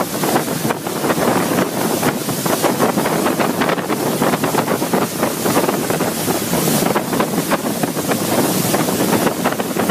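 Steady, loud rushing of a swollen floodwater torrent, mixed with wind buffeting the microphone.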